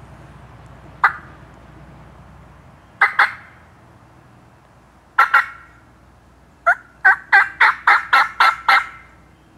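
Turkey calling: a single sharp note, then two pairs of notes, then a quick run of about eight yelps near the end.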